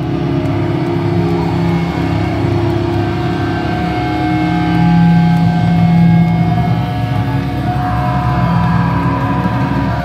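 Live metalcore band playing loud, with distorted electric guitars holding long, steady chords; the chord changes about eight seconds in.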